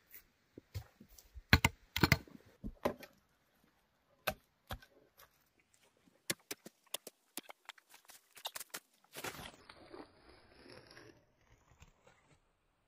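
Digging hoe striking and scraping into soil among roots, a string of sharp knocks that are loudest about a second and a half in. Near the end, a woven plastic sack rustles as it is shaken open.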